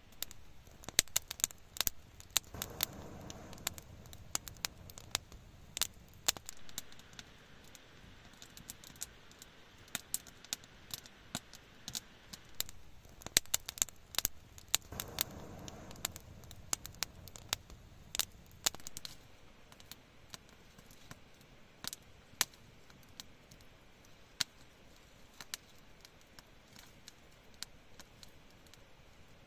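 Wood fire crackling with irregular sharp pops, and two brief soft rushes of sound.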